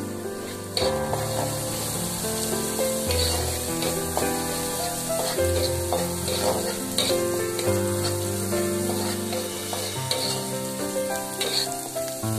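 Food sizzling as it fries in oil in a steel wok, stirred with a metal spatula that now and then scrapes the pan. Background music with sustained notes plays alongside.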